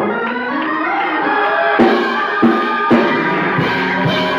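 Church band playing a praise break: sustained keyboard chords with a few sharp drum kit hits in the second half.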